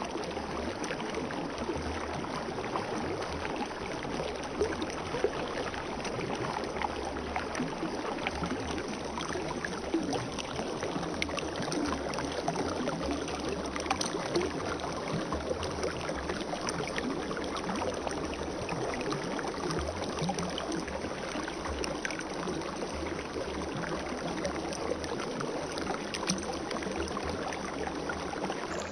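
Spring water flowing steadily: a continuous watery rush with many small splashes.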